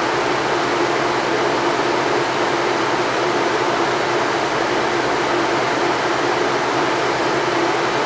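Haier ESAQ406T window air conditioner's blower fan running with the compressor off, blowing air through the indoor coil to melt its frost. A steady rush of air with a low hum.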